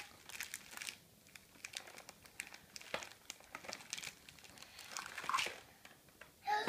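Packaging crinkling and rustling in short, irregular bursts as a child rummages through a Christmas stocking and pulls out a plastic candy tube.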